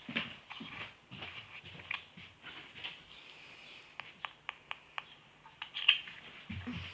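Slime being squished and poked by hand: irregular wet squelches, with a quick run of sharp little clicks and pops about four seconds in.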